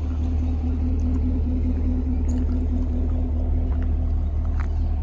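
Chevrolet Camaro SS's 6.2-litre V8 idling steadily, heard from behind the car at its quad exhaust tips.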